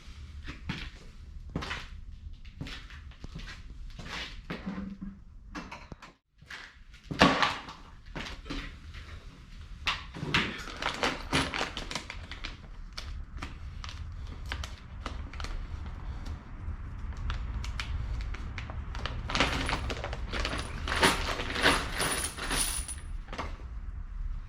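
Irregular clicks, knocks and clatter of objects being handled, with one loud knock about seven seconds in and denser bursts of clatter in the middle and near the end.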